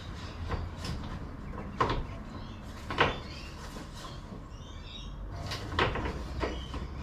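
Cooling fan assembly being fitted into its slots in a car's engine bay: three sharp knocks about two, three and six seconds in, with smaller clicks between them.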